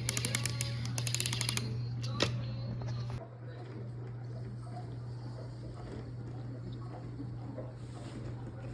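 Toy train running on wooden track: a steady motor hum with a rapid run of clicks in the first second and a half, then a single click, and the level dropping slightly about three seconds in.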